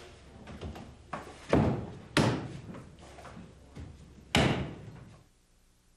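Wooden half-log siding board being set and pressed into place against the wall: three sharp wooden knocks, with quieter handling noise between them.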